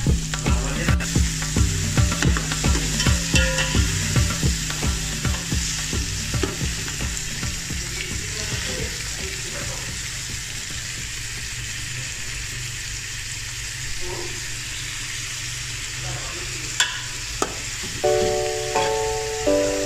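Onions, ginger and garlic sautéing in an aluminium pot, sizzling steadily. A metal spoon stirs and knocks repeatedly against the pot through the first several seconds, after which the sizzle carries on alone.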